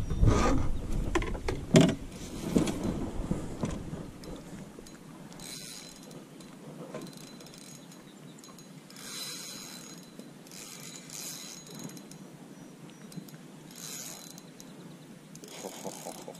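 Spinning reel cranked in several short spurts, its gears whirring, with knocks and low rumble of handling in the first few seconds.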